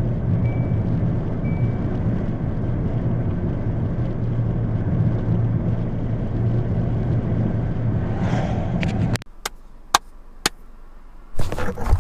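Steady engine and road noise inside a moving car, with a short high beep about once a second that sounds twice near the start. About nine seconds in the noise cuts off suddenly, followed by a few sharp clicks and a brief rustle near the end.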